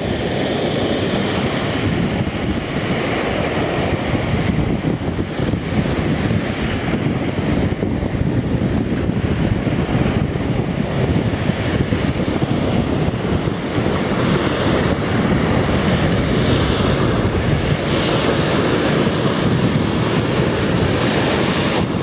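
Caspian Sea surf breaking and washing up a sandy beach in a steady rush, with wind blowing across the microphone.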